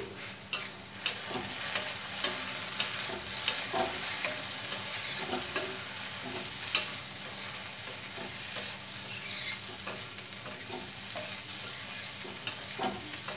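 Okra frying in a metal kadhai, sizzling steadily while a spatula stirs it, with irregular clicks and scrapes of the spatula against the pan.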